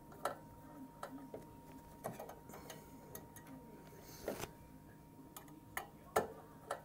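Scattered light clicks and knocks of fingers working wire spade connectors on the metal chassis of an opened microwave, with a brief scrape about four seconds in, over a faint steady whine.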